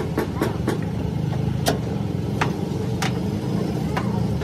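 An engine running steadily. A quick run of light ticks dies away in the first second, followed by four sharp knocks less than a second apart.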